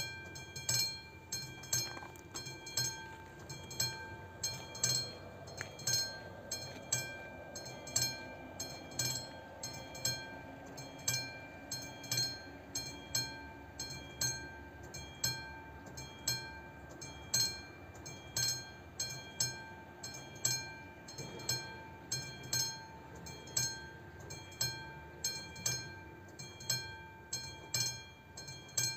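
Level crossing warning bell of an AŽD 71 crossing signal, starting suddenly and then ringing in a steady, even rhythm of ringing strikes. It is the warning that a train is approaching.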